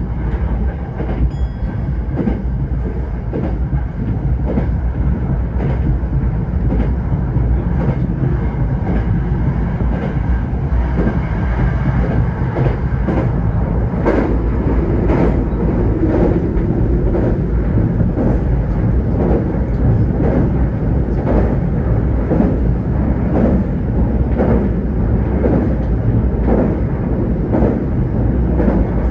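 Eidan 05 series subway train running at speed, heard from the cab: a steady rolling rumble with a continual run of wheel clicks over the joints of jointed rail.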